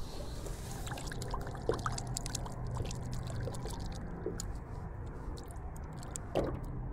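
Water trickling and dripping close by, with a few small plinks of drops, the clearest a little over six seconds in.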